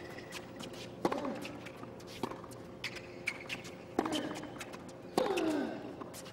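A baseline tennis rally on a hard court. Racket strings strike the ball about every second or so, four times. Several hits are followed by a short grunt that falls in pitch, and there are brief shoe squeaks and footfalls in between.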